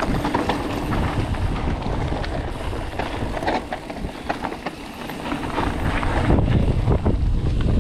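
Mountain bike riding fast down a dirt and stony forest trail: wind rushing over the microphone, tyres rolling on the ground, and the bike rattling and knocking over bumps. The wind rumble grows louder near the end.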